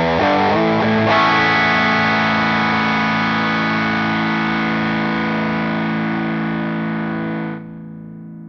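Electric guitar played through a Gokko Pazuzu Hardcore Overdrive pedal: a few distorted notes, then a chord left ringing with a sound the player likens to compression. The chord cuts off suddenly about seven and a half seconds in, leaving a fainter low tone.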